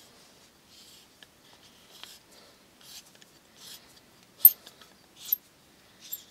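Threaded insert being turned with an Allen wrench in the tapped hole of a wooden handle: short, faint scraping rubs about once a second as the threads bite, then two sharp clicks past the middle.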